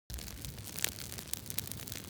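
Wood fire crackling in a fireplace: irregular sharp pops and snaps over a steady hiss, with one louder snap under a second in.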